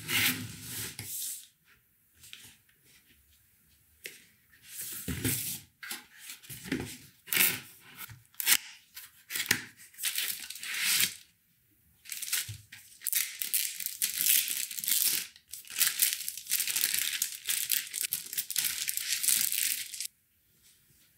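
Cardboard packaging being opened and handled: boxes shifted with a few soft knocks, then a box lid and wrapping pulled away from a tamping station. Irregular rustling and scraping, with a long unbroken stretch of it in the second half.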